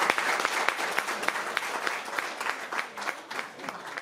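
Audience applauding, loud and dense at first and thinning to scattered claps near the end.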